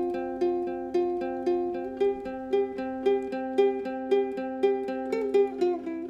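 Ukulele strumming an instrumental passage: a steady rhythm of chords about twice a second, with no singing and a chord change near the end.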